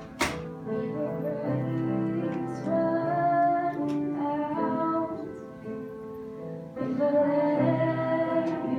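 Worship song: a woman singing over instrumental accompaniment, with a single sharp knock right at the start.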